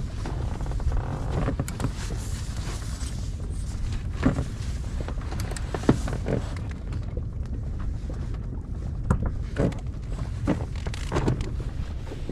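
Steady low rumble of wind on the microphone, with a series of irregular knocks and clicks from the parts of a folding canopy frame being fitted on an inflatable boat. The sharpest knock comes about six seconds in.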